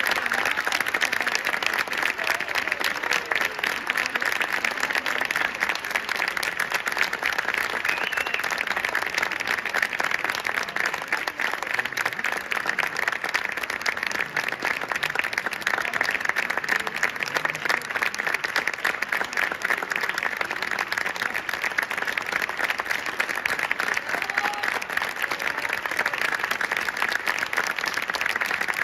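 Audience applauding steadily, a dense, unbroken clapping.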